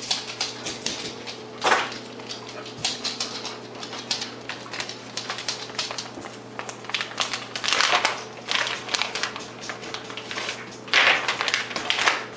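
A dog's claws clicking and tapping on a laminate kitchen floor as it moves about, irregular and fairly quick. There are a few short, louder rushes of noise, near two, eight and eleven seconds in.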